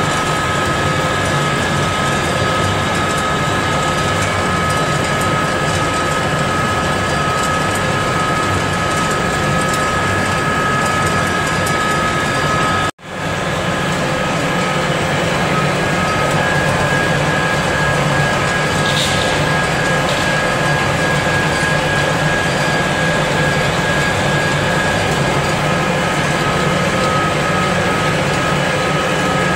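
Vertical ring-die pellet mill running under load, pressing spent mushroom substrate into pellets: a steady loud mechanical drone with a high, even whine on top. It breaks off for an instant about 13 seconds in and picks straight up again.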